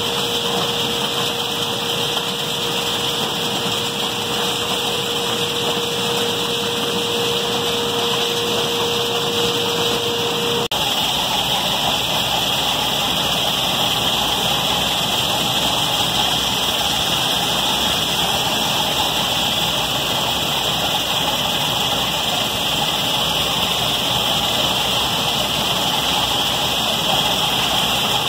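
Seed-cleaning machine running, its vibrating screen decks shaking a layer of white beans: a steady, dense hissing rattle with machine hum underneath. A steady hum tone drops out at a short dip about ten and a half seconds in.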